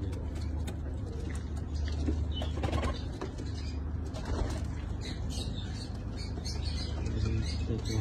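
Domestic pigeons in a loft cooing, with wing flaps and rustling as birds shift on the shelves. A steady low hum runs underneath.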